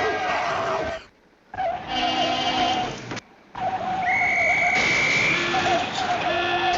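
Cartoon soundtrack sound effects: a wavering held tone, cut off twice by brief drops to near silence. About four seconds in, a high whistle slides slightly upward for about a second.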